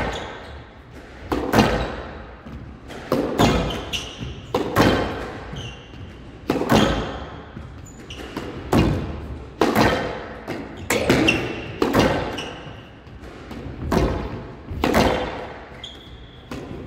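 Squash rally: the ball struck by rackets and hitting the walls about every one to two seconds, each hit ringing on in the large hall, with short squeaks of court shoes between shots.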